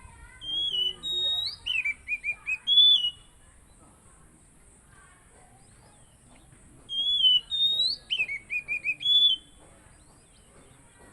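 Oriental magpie-robin (kacer) singing loud, clear whistled phrases: the same phrase twice, several seconds apart, each a falling then rising whistle, a quick run of about four short notes and a final held whistle.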